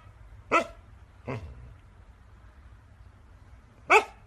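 Husky puppy giving short, sharp barks: one about half a second in, a weaker one a moment later, and another near the end.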